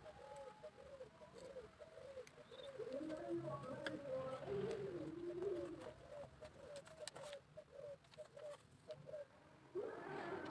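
Dove cooing faintly in a fast, evenly repeated series, with light clicks of thin bamboo rods being handled from about four seconds in.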